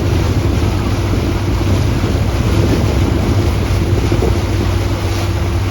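Motorboat underway: steady engine drone with water rushing past the hull and wind buffeting the microphone.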